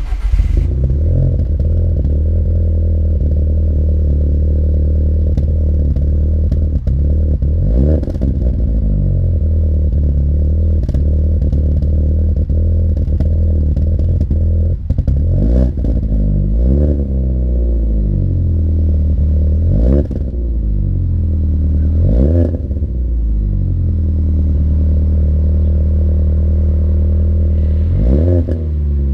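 Alfa Romeo 159 1750 TBi's turbocharged four-cylinder petrol engine idling through a modified exhaust (downpipe fitted, mid silencer removed), blipped in short revs about six times that rise and fall back to idle.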